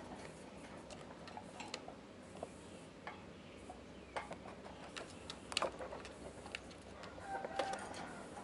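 Sugar glider clambering about a wire cage, its claws making scattered sharp clicks and taps on the metal bars and mesh. A short pitched call sounds about seven seconds in.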